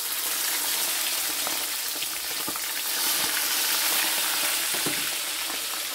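Milkfish frying in hot canola oil in a wok: a steady sizzle with a few faint clicks and pops. The fish are golden-brown and nearly done.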